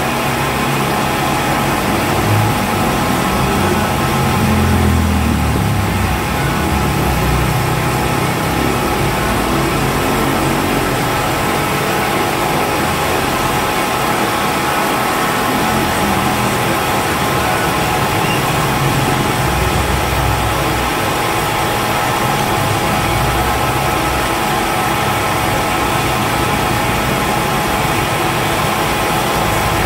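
Milling machine running, its spindle driving an end mill that cuts a valve relief pocket into a piston crown: a steady machine hum with several constant high tones over a shifting low rumble.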